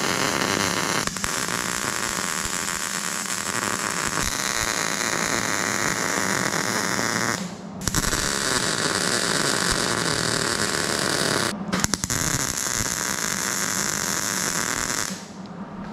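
MIG welder laying beads on thin 18-gauge sheet steel, welding a repair patch into rusted body structure: a steady frying hiss in three runs, with short stops about seven and a half and eleven and a half seconds in, ending about a second before the close.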